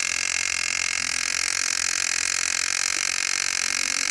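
Electric fuel pump of a 1989 Honda CBR600 running steadily with the ignition on, priming the carburettors before a start attempt; the engine itself is not running.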